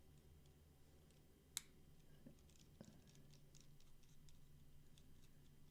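Faint small metallic clicks and ticks from a driver turning a small screw into a folding knife's handle, with one sharper click about a second and a half in and a run of lighter ticks after it.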